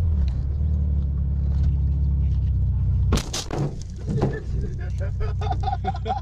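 Steady low rumble of a car heard from inside the cabin, then about three seconds in a loud sudden crash as the windshield cracks, with a few sharper knocks just after.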